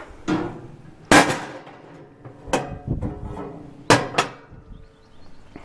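Sharp metal knocks and clangs, about six in all and the loudest about a second in, some ringing briefly: parts of a stainless-steel Biro 3334 commercial meat band saw being handled, such as its clean-out covers and doors being worked.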